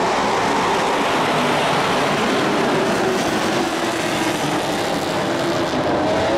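A pack of dirt-track racing pickup trucks running at speed on the oval, their engines blending into a steady, dense drone.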